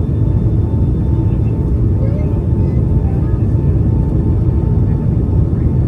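Steady low rumble of a Boeing 757-200's engines and airflow heard inside the passenger cabin, with a faint steady whine above it.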